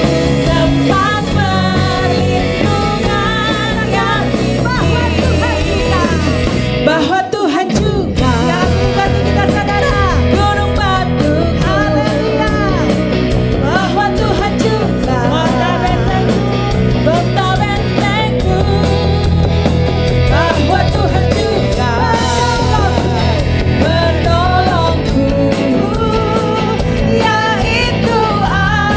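Live worship band playing an Indonesian praise song: two women singing lead into microphones over electric guitar, keyboard and drum kit. The band briefly drops away about seven seconds in, then comes back in.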